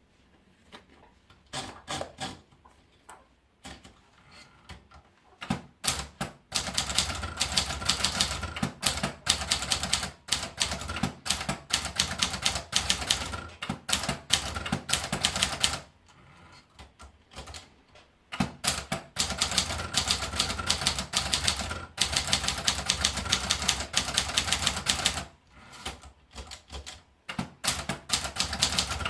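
Triumph Contessa De Luxe manual portable typewriter being typed on: a few scattered key strikes at first, then fast runs of sharp clacking keystrokes broken by two short pauses.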